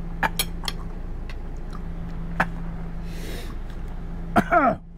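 Knife and fork clinking and scraping on a ceramic plate, a few separate clicks, over a steady low hum. Near the end a brief falling voice sound from the man, reacting to the spicy steak.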